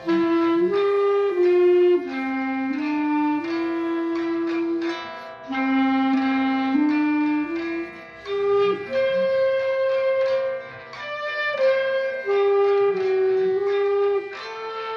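B-flat clarinet (Moresk M61) playing a slow hymn melody in long held notes, over a classical guitar backing track.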